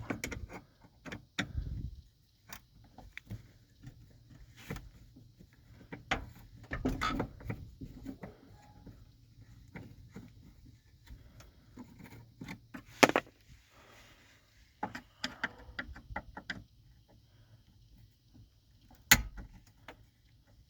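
Scattered clicks, taps and light knocks of hand-tool work: a Phillips screwdriver backing out screws from a truck's hood release handle under the dash, with two sharper knocks, one past the middle and one near the end.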